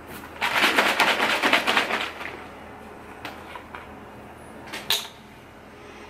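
A plastic shaker bottle of whey protein shake being shaken hard, a quick rattling slosh lasting about a second and a half. Then a few plastic clicks and a sharp snap near the end as the lid comes off and is set down.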